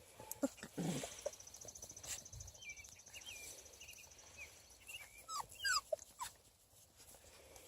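Very young beagle puppies whimpering and squeaking in small, high cries. About five seconds in comes a quick run of short falling yelps.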